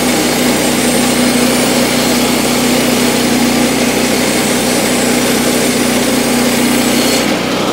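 Woodland Mills HM122 portable bandsaw mill sawing a timber lengthwise: its gas engine runs steadily under load while the band blade cuts, with a dense hiss of the cut over the engine hum. Near the end the hiss drops away as the blade comes out the end of the board, leaving the engine running.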